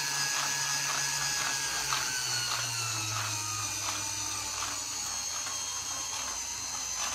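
Plastic four-cylinder engine model driven by a small electric motor. There is a steady motor hum and high whine, with the model's moving parts clicking about three times a second. The hum drops slightly in pitch about two seconds in.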